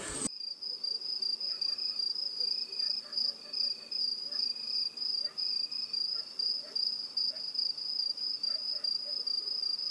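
Crickets chirring: a steady high trill with a fainter lower chirp repeating about every 0.7 seconds. It cuts in abruptly just after the start.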